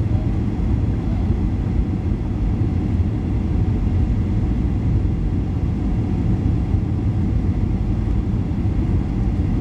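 Steady low rumble of a Boeing 737 on final approach, heard inside the passenger cabin.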